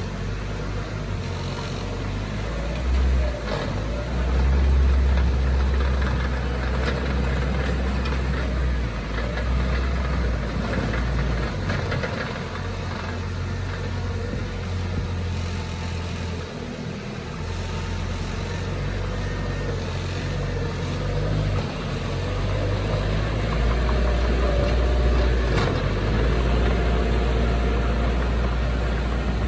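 Heavy diesel engine of earthmoving machinery running continuously with a deep low drone. It grows louder and eases off several times, swelling about four seconds in and again near the end.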